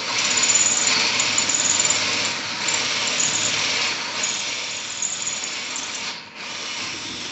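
Electric drill boring into the steel of a safe, running continuously with a high grinding hiss, briefly easing off about six seconds in.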